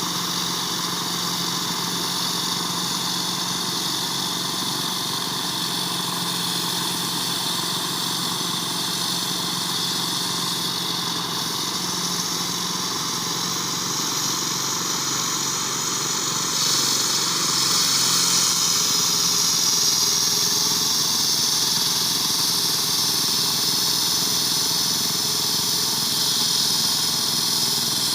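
Caterpillar 330 GC excavator's diesel engine running steadily, with a high hiss over it that gets louder about 17 seconds in.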